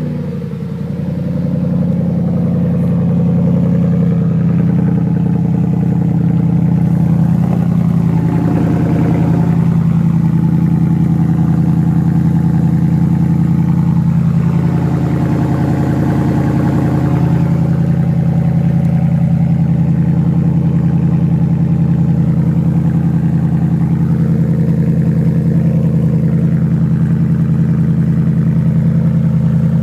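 2013 Ford F-150's Coyote 5.0 V8 idling steadily through a true dual exhaust, heard from outside the truck.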